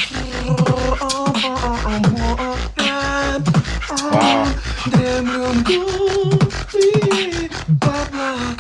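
Two beatboxers performing a tag-team routine: a steady mouth-made beat of deep kicks and sharp snares and clicks under sung, held melody notes that change pitch every half second or so, with a wavering note about four seconds in.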